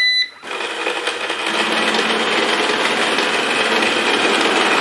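Eufy RoboVac 30C robot vacuum giving a short beep as it starts, then running, its motors building up over the first second and a half into a loud, steady noise. Over the running noise is an awful clicking, ratcheting sound from one side brush motor, which the owner puts down to gear teeth that have likely broken off or worn down.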